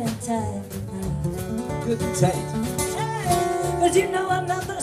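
Live acoustic band playing an Americana song: several acoustic guitars strumming, with a melody line held and bending over the chords.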